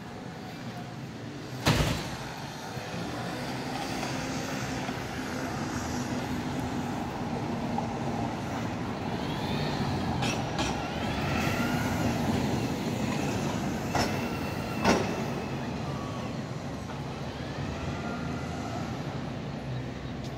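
City street traffic with a bus driving past, its noise swelling over several seconds and then easing off, with a few high squeals along the way. Sharp knocks cut through about two seconds in, the loudest moment, and twice more later on.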